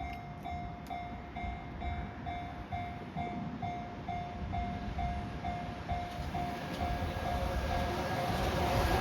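Japanese level-crossing warning bell ringing in a steady 'kan-kan' about twice a second, while an approaching freight train hauled by an EF210 electric locomotive grows steadily louder underneath it toward the end.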